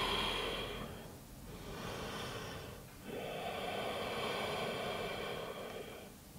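A woman's slow, deep breathing, heard close on a body-worn wireless microphone: a quieter breath from about one and a half seconds in, then a long, louder breath of about three seconds that fades just before the end.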